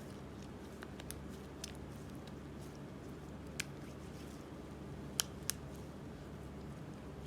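Slime and chalk being worked by hand: a few scattered sharp little clicks and crackles, the loudest two close together about five seconds in, over a steady low hum.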